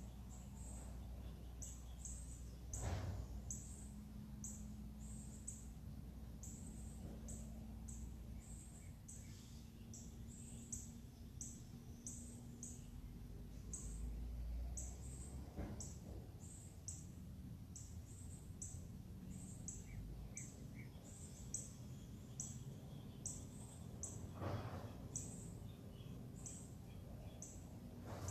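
A bird's short, high chirps repeating steadily about one and a half times a second, over a faint low rumble. Three brief knocks come near the start, in the middle and near the end.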